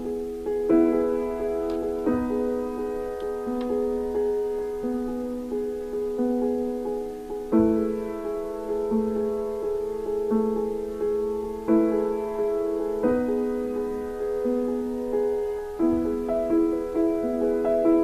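Background piano music, its notes and chords changing every second or two.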